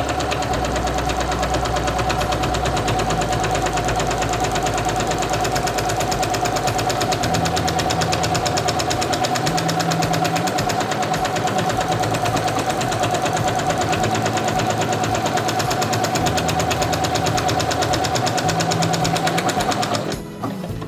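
Singer Quantum Stylist 9960 computerised sewing machine stitching a one-step automatic buttonhole: a steady motor whine with rapid, even needle strokes. It stops near the end when the buttonhole is finished.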